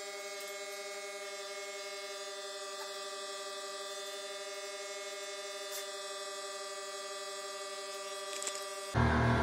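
Steady electrical hum, one constant pitch with many overtones, that cuts off abruptly near the end.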